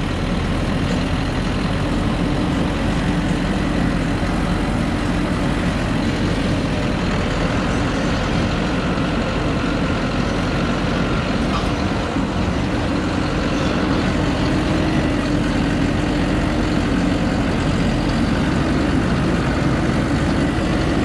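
Truck engine running steadily under load as the truck climbs a rough, rocky dirt track, heard from on top of the cab.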